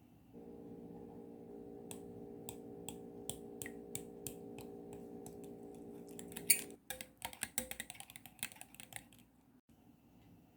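A kitchen utensil clicking against a bowl while banana pancake batter is mixed: a few clicks a second, then a quicker run of clicking near the end. A steady low hum sounds under it and stops about two-thirds of the way through.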